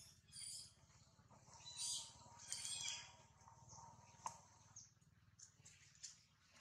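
Faint high-pitched animal chirps, a few short calls in the first three seconds, with a single sharp click about four seconds in.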